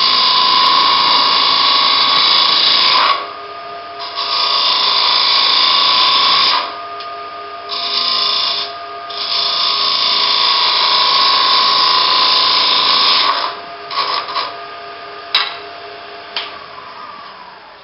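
Bowl gouge cutting the outside of a spinning wooden bowl on a wood lathe, in long passes of a few seconds each and then several short touches, over the steady hum of the lathe. Near the end the cutting stops and the lathe sound dies away as it is shut down.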